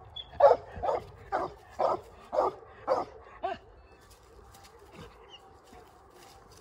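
Young black and tan coonhound barking treed at a raccoon up the tree: about seven barks, roughly two a second, stopping about three and a half seconds in.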